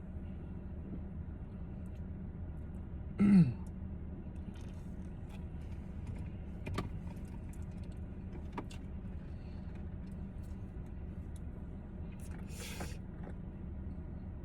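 Steady low hum of a car's engine running, heard from inside the cabin. About three seconds in comes one short vocal sound that falls in pitch, followed by a few faint clicks and, near the end, a brief hiss.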